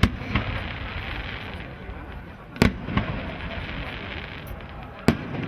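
Aerial fireworks bursting in sharp bangs: one right at the start, a close pair a little past halfway, and another near the end, over a steady background noise.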